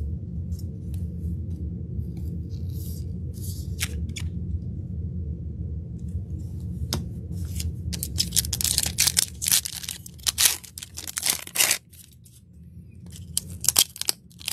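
A trading card pack wrapper being torn open: a few seconds of crinkly tearing about halfway in, with light clicks of cards being handled before and after.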